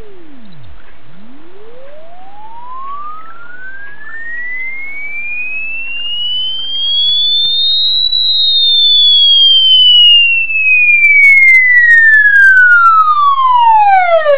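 Pure sine-wave test tone sweeping in pitch. It drops to a very low hum right at the start, rises slowly to a high whistle about eight seconds in, then glides back down while growing louder. Crackles and extra overtones come in over the last few seconds.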